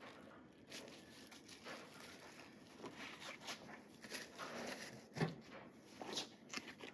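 Faint handling noises: light rustling and small clicks as pocket knives and their boxes are picked up and put down, with one sharper click about five seconds in.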